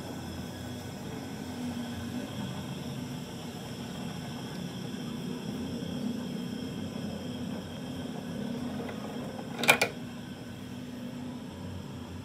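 A small machine motor humming steadily, with one sharp knock about ten seconds in.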